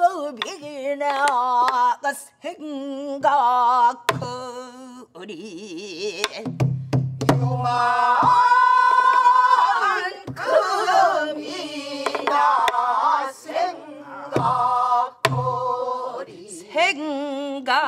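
Pansori singing: voices with wide, wavering vibrato, a woman leading and the class singing the lines with her, over buk barrel-drum strokes, deep thuds on the drumhead and sharp stick clicks on the rim.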